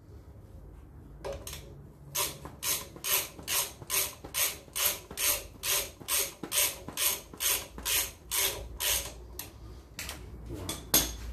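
Hand socket ratchet tightening bolts on a Land Rover Series swivel hub: a long run of even ratcheting strokes, about two and a half a second, starting about two seconds in and stopping about nine seconds in, with one more sharp click near the end.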